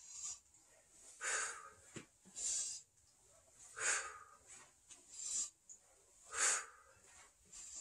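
A man breathing hard and rhythmically through a bodyweight exercise. Three loud breaths come about two and a half seconds apart, with quieter breaths between them. This is paced breathing, one breath out with each yoga push-up rep as the leg lifts.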